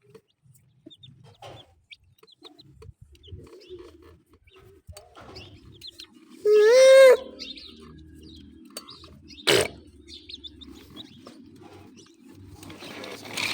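Domestic hen clucking softly, with one loud drawn-out call about halfway through. There are faint high chirps throughout, a short sharp sound about two-thirds through, and rustling near the end.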